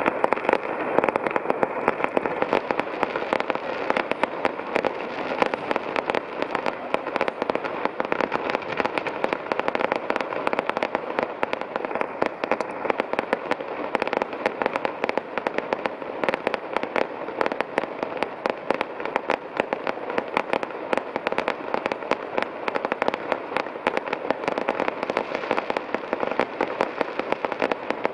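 Fireworks display: aerial shells bursting and a firework waterfall of sparks, heard as a dense, unbroken crackle of many rapid pops and bangs at an even level.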